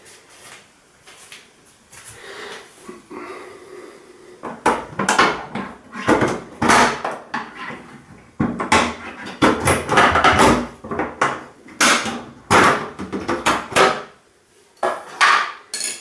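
The plastic plinth panel of a Hotpoint Ariston washing machine being pried and pulled off with a tool: a dense run of loud clacks, clicks and scrapes of plastic that starts about four seconds in, with a couple of last knocks near the end.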